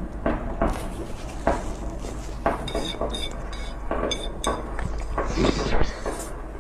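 Chopsticks clicking and scraping against a plate as food is picked up, with a few ringing clinks about three and four seconds in, alongside close-up chewing.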